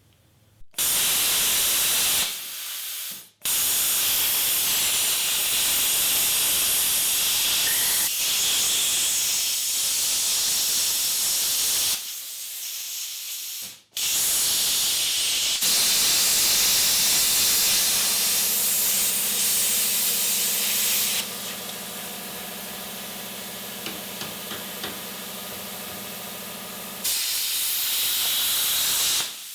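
Power tool cutting a steel transfer case shaft: a harsh, loud hissing noise in several stretches broken by abrupt stops. From about halfway a steady motor hum runs under it, and after about 21 s the hiss drops back before rising again near the end.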